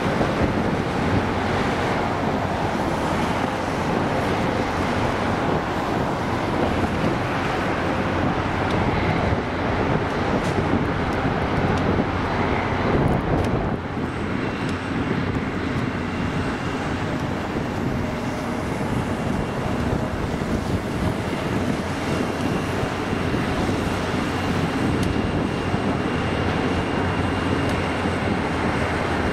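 Steady rumble of trains moving through a rail yard, with wind buffeting the microphone. After an abrupt change about halfway through, an NJ Transit diesel locomotive hauling a string of coaches runs toward the microphone.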